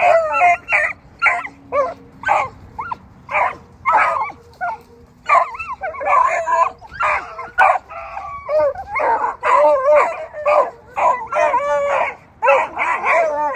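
A pack of beagles barking over one another in quick, overlapping calls, several dogs at once: the rabbit hounds are wound up and 'gamed up'.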